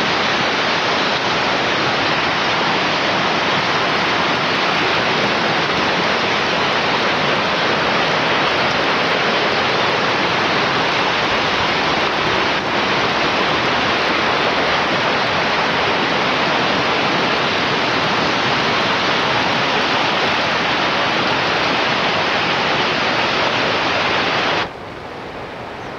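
Missouri River floodwater rushing and churning in rapids, a steady, loud, even rush of water that drops suddenly quieter about a second before the end.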